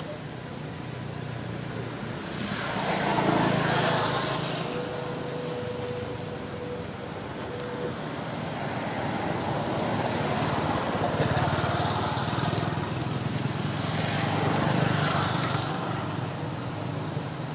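Road traffic: vehicles pass twice, loudest about three seconds in and again near the end, over a steady low engine hum.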